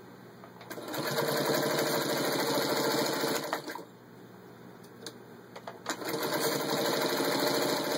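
1941 Singer 221 Featherweight sewing machine, its motor freshly rebuilt, stitching at speed through six layers of denim with a fast, even rhythm. It runs for a couple of seconds, stops with a few clicks, and starts running again about six seconds in.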